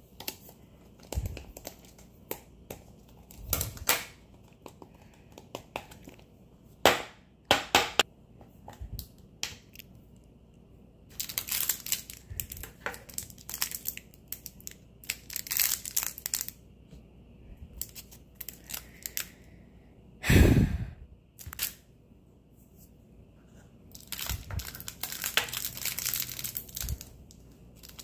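Scattered clicks and taps of a plastic slime tub and its lid being handled, then a small clear plastic bag of polymer-clay slice sprinkles crinkling and being torn open, with one louder crackle about two-thirds of the way through.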